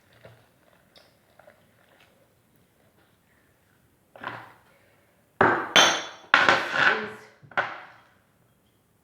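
Kitchen ware and food being handled: a few faint knocks, then a run of loud clattering and rustling from about five and a half to eight seconds in.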